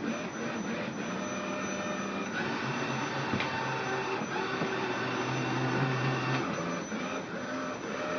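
Meyoung robot vacuum cleaner running in mop mode on a laminate floor: a steady, quiet motor whir with a low hum that drops in and out for a few seconds at a time.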